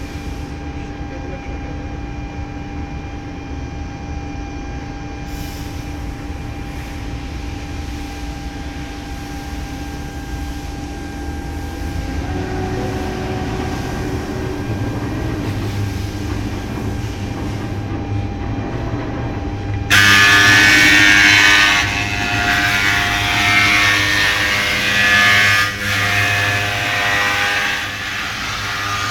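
CNC milling machine running with a steady hum and a few held whining tones. About two-thirds of the way through, a much louder grinding cutting noise with a high whine starts suddenly.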